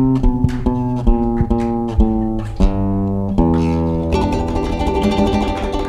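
Acoustic guitar playing an instrumental passage: plucked notes about three a second in a line that steps down in pitch, then a fuller chord about four seconds in that rings on.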